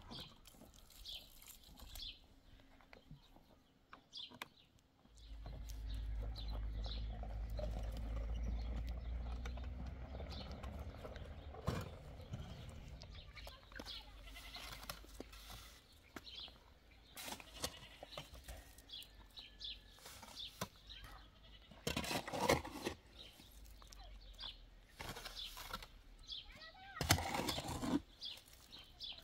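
Goats bleating, with two loud calls about two-thirds of the way in and again near the end. Before them a low steady rumble with a hum runs for about ten seconds.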